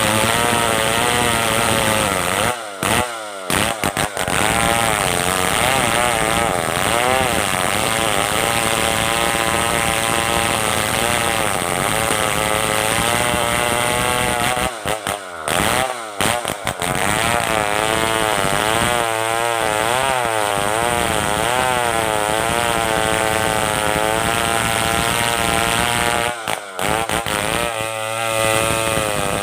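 Stihl 070 two-stroke chainsaw running under load as it rips through merbau hardwood, its engine pitch wavering up and down as the bar bites. The sound drops out briefly three times.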